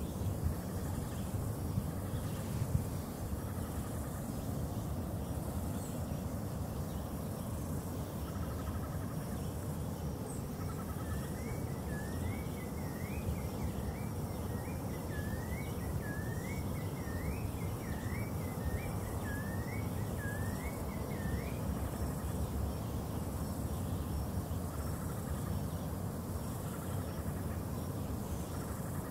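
Dawn outdoor ambience: a steady low rumble under a faint, even high insect trill. From about 11 to 21 seconds in, a bird gives a run of about a dozen short rising-and-falling notes.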